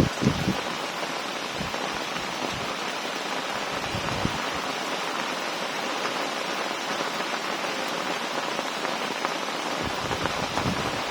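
Heavy rain falling steadily in a storm, an even hiss, with low buffeting of wind on the microphone briefly at the start and again near the end.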